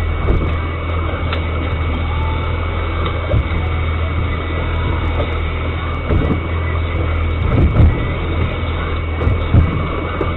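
Boat engine running steadily, an even low hum with water and wind noise, broken by a few dull thumps near the end.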